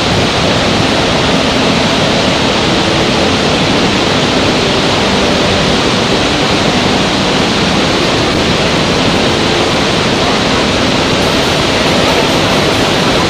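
Waterfall rushing: a loud, steady roar of falling water that holds even throughout.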